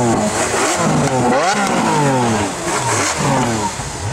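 Supercar engine revving and accelerating, its pitch sweeping up and down several times.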